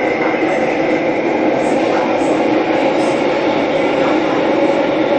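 Interior noise of a Bombardier MOVIA C951 metro car running through a tunnel: a steady rumble with a few steady motor tones over it.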